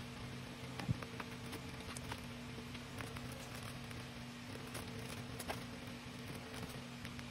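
Light rustling and small ticks of a cardboard box and plastic-wrapped items being handled and lifted out, over a steady low hum.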